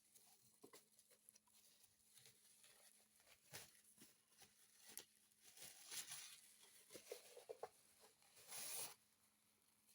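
Faint rustling, tearing and handling of packaging as a parcel is unwrapped, with scattered small clicks and a longer rustle near the end.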